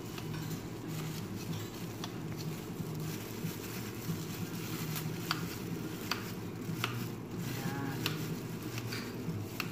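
Kitchen knife cutting processed cheese on a ceramic plate, the blade clicking against the plate now and then, over a steady low hum.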